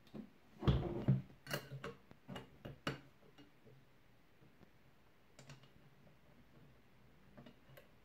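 Clicks and light knocks of a plastic delta sanding pad being fitted by hand onto the accessory mount of a Parkside Performance PAMFWP 20 Li B2 cordless oscillating multi-tool. The knocks cluster in the first three seconds, loudest about a second in, followed by a few faint clicks.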